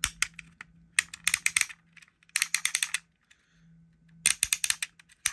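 Gunfire-sound mechanism of a Corgi Kojak Buick Regal die-cast toy car, worked by turning the dial underneath. It gives four short bursts of rapid ratchet-like clicks, meant to sound like the figure's gun shooting.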